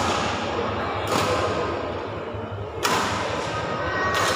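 Badminton rackets striking a shuttlecock during a rally: three sharp hits about a second and a half apart, over a steady murmur of spectators' voices in the hall.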